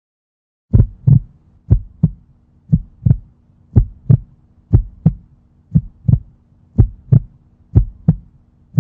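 Heartbeat sound effect: a low double thump repeating about once a second, eight beats in all, over a faint steady hum, starting about three-quarters of a second in.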